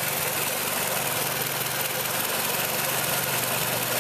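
2005 Pontiac Sunfire's 2.2-litre four-cylinder engine idling steadily while running hot, its electric radiator cooling fan not coming on: a fault in the fan or its control circuit.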